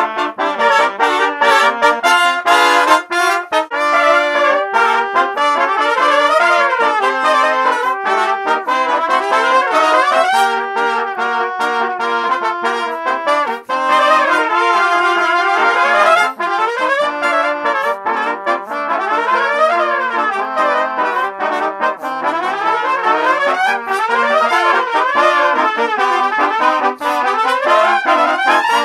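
A multitrack ensemble of eight overdubbed trumpet parts, all played by one trumpeter, sounding in harmony in a cheerful brass band piece. Quick articulated notes run through it, with several fast rising and falling runs.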